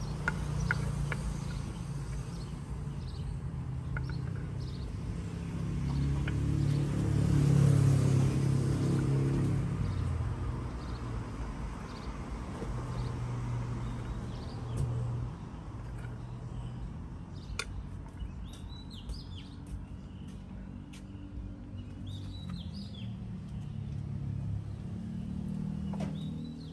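Street ambience: a low engine hum that swells loudest about eight seconds in, with birds chirping in the second half.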